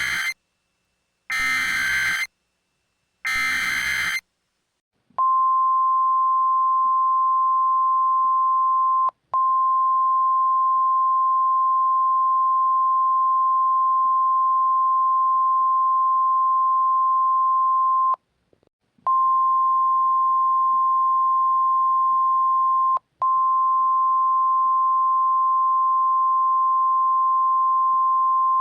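Emergency Alert System SAME header: the end of one harsh, buzzy data burst, then two more bursts about a second apart. About five seconds in comes the NOAA Weather Radio 1050 Hz warning alarm tone, a single steady high beep that holds on. It drops out briefly about nine seconds in, stops for nearly a second at about eighteen seconds, and dips once more near twenty-three seconds.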